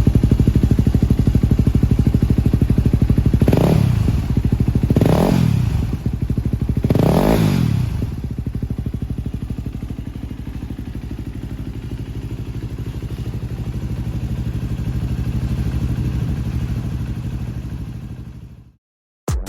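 Yamaha WR250X's single-cylinder four-stroke engine, breathing through an SP Tadao Power Box exhaust pipe and an FMF silencer, idling, then revved in three quick throttle blips a few seconds in. It settles back to a steady idle and dies away near the end.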